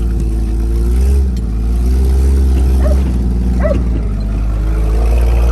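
Jeep CJ7's engine running steadily while driving, its pitch shifting a little with engine speed, with a deep rumble underneath. A dog gives two short whimpers about three and nearly four seconds in.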